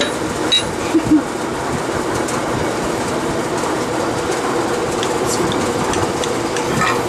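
A rubber mallet knocks a few times on the pistons of a stripped engine block, about half a second to a second in. A steady droning noise runs underneath.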